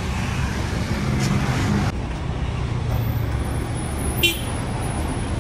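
Steady street traffic rumble, with a passing vehicle's engine hum in the first two seconds. About four seconds in, a single sharp metallic clink.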